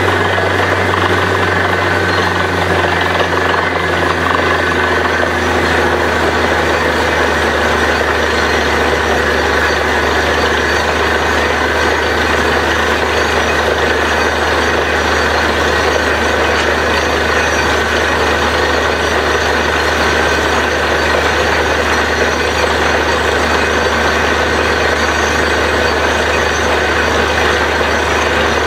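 Truck-mounted borewell drilling rig running at work: a loud, steady engine and compressor drone with a deep low hum, holding an even level throughout.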